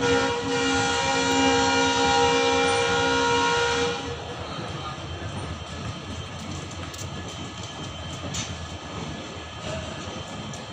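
WDP4B diesel locomotive horn sounding one long blast of about four seconds, a steady chord of tones. After it stops, the train's steady running noise continues.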